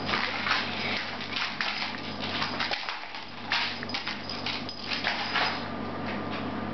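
Turkish Angora cat's paws and claws scrabbling and skittering on a tiled floor as it spins after its tail: irregular short scratchy clicks and scuffs over a steady hum.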